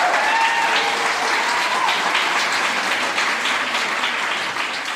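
Audience applauding and cheering at the end of a live performance, with one long high-pitched call over the clapping in the first two seconds. The applause thins out toward the end.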